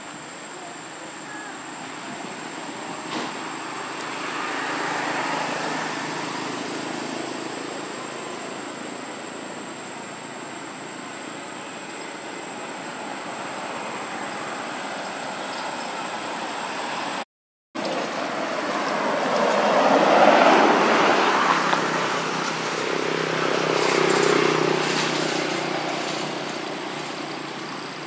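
Road traffic: a steady rush that swells and fades as vehicles pass, loudest about two-thirds of the way through. It drops out completely for a moment just before the loudest swell.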